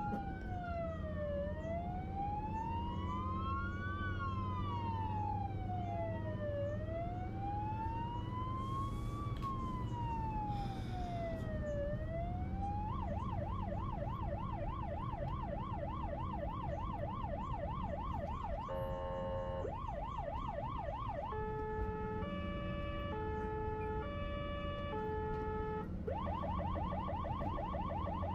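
Electronic emergency-vehicle siren switching modes: first a slow rising and falling wail, then from about halfway a fast warbling yelp. The yelp is broken by a short held tone and a few seconds of two-tone hi-lo before it returns. A steady low hum runs underneath.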